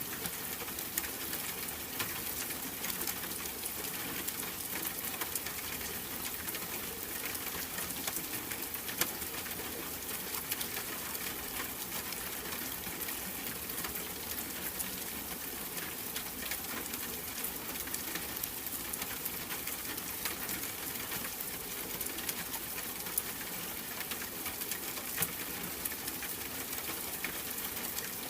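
Steady rain, a dense, even patter of drops.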